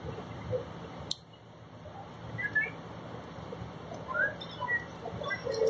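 Faint, scattered short bird chirps over a low background rumble, with a single sharp click about a second in as the metal wiper spindle parts are handled.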